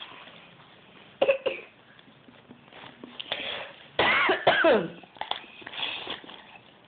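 Coughing: a woman's coughs and a toddler's mock coughs copying them. A short cough comes about a second in, then a louder run of coughs with a falling pitch around four seconds in, followed by a few fainter ones.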